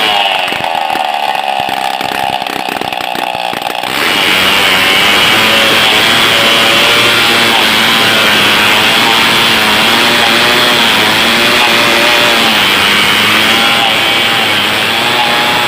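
Stihl 070 two-stroke chainsaw easing off with falling revs for about four seconds, then opened up to full throttle and running hard with a slightly wavering pitch as it cuts through a large log.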